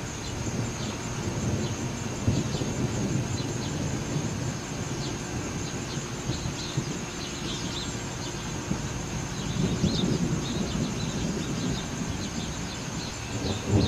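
Distant thunder rumbling low and long, swelling about two seconds in and again around ten seconds.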